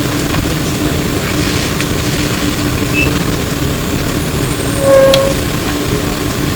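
Flyer E902 electric trolleybus heard from inside as it runs: a steady ride rumble under a constant low hum, with a short, loud tone about five seconds in.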